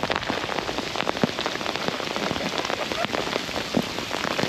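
Heavy rain falling, a dense steady patter with many sharp individual drop hits.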